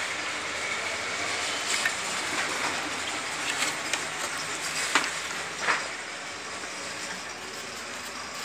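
Sharp clicks and knocks of a TV power supply circuit board being handled and lifted off its sheet-metal chassis, the loudest about five seconds in, over a steady background hiss.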